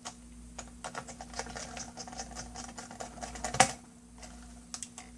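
Small irregular clicks and taps of plastic and metal laptop parts being handled and fitted, with one sharper click about three and a half seconds in.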